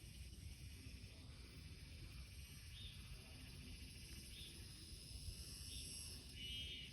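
Faint forest ambience: a steady high insect drone with a few short, high chirps in the second half.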